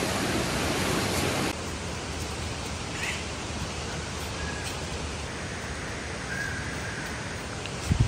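Steady, even rushing noise of the outdoors, with no single sound standing out, which drops in level about a second and a half in. A few faint short chirps sound over it.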